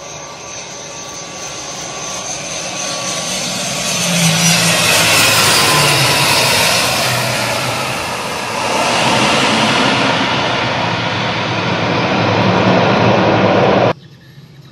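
ATR 72-500 turboprop airliner landing: the engines and propellers grow louder as it comes in close, with a whine falling in pitch. The noise stays loud as it rolls along the runway, swells again, then cuts off suddenly near the end.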